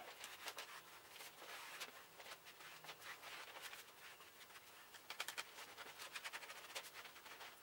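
V-notched spatula scraping and spreading epoxy across a Garolite LE fiberboard sheet: faint, irregular scratching and small clicks, with a quicker run of clicks about five seconds in.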